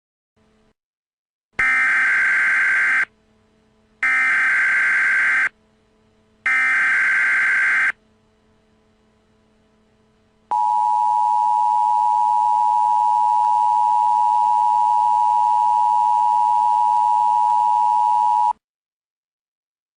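Emergency Alert System tones: three short bursts of SAME header data, each about a second and a half long, then a two-tone attention signal held steady for about eight seconds before it cuts off. Together they mark the start of an emergency alert broadcast.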